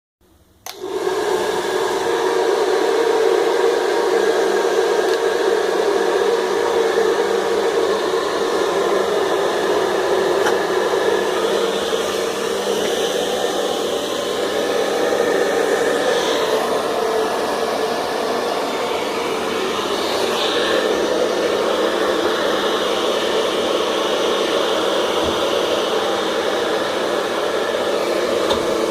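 Handheld hair dryer switching on about half a second in, then running steadily at full blow with a steady motor whine.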